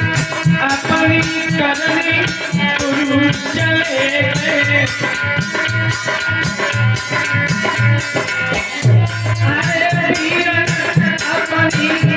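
Instrumental passage of a Hindi devotional bhajan. A rattle or shaker keeps a steady, quick rhythm over drum beats, under a sustained melodic instrument line.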